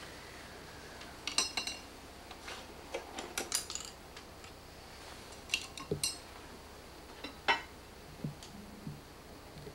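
Scattered light clinks and taps of painting tools being handled, a few with a brief ring; the loudest comes about three-quarters of the way through.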